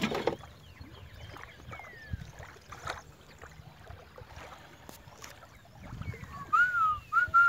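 Canoe being paddled on a river: quiet paddle strokes, water and a few light knocks, with faint bird chirps. Near the end come several short whistled notes that rise and fall.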